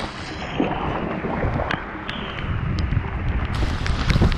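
Storm wind buffeting the microphone, a rough low rumble that grows stronger near the end, with scattered sharp ticks over it.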